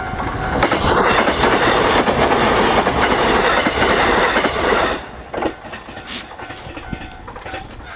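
A train passing over a level crossing, its wheels clattering on the rails; loud for about four seconds, then cutting off sharply about five seconds in as the last car clears.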